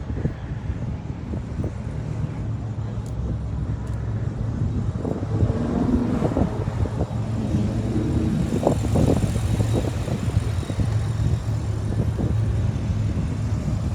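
Car engine running with a steady low rumble, with faint voices in the background.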